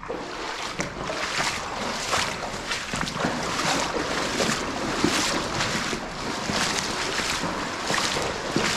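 Footsteps wading through shallow water in rubber waders: steady splashing and sloshing strides, about one and a half a second.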